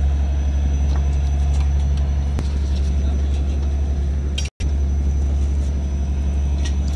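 Mechanised fishing boat's inboard diesel engine running steadily, a loud low drone, with a split-second dropout about four and a half seconds in.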